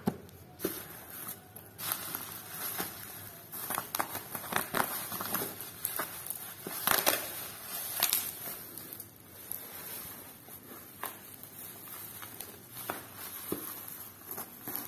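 Bubble wrap and plastic packing tape crinkling and crackling as hands pull a parcel's wrapping open, in irregular bursts of short sharp crackles.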